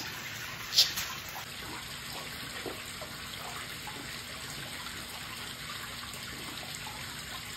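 Water running steadily in a koi pond, with a brief splash just under a second in as a scoop of pellet fish food lands on the surface.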